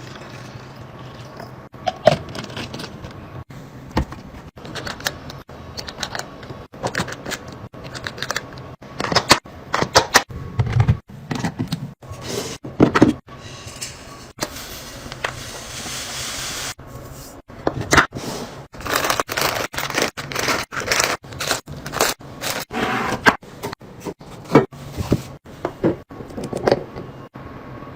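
Containers and packages being handled and set down during restocking: a run of clicks, knocks and scrapes, with a hissing stretch about halfway through.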